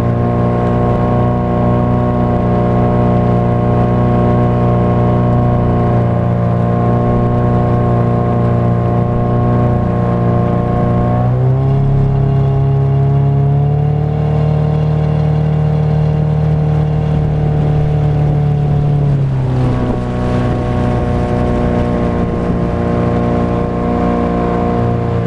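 Motorboat engine running at a steady speed. Its pitch rises about eleven seconds in, holds, and drops back to the earlier speed near twenty seconds.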